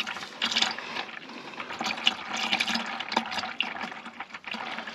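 Oil mixed with rust penetrant draining from a tractor's sump drain hole and splashing into a container below, a continuous pour with uneven splashes. It is oil rather than water coming out.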